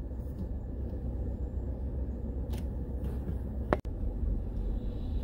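Low, steady rumble of a minivan rolling slowly along a sandy dirt road, heard from inside the cabin, with two faint clicks about 2.5 and 3.7 seconds in.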